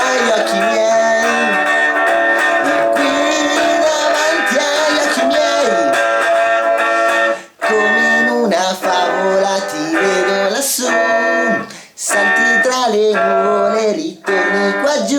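Electric guitar played through a small Mini Marshall amplifier that runs on a 9-volt battery: loud sustained chords and note runs, with short breaks about halfway through and near the end.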